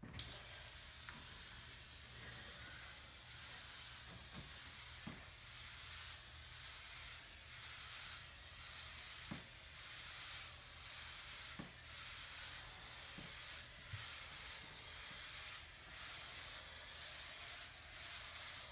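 Aerosol spray can hissing in one long continuous spray, wavering a little in loudness as the can is swept back and forth. A few faint knocks can be heard under the hiss.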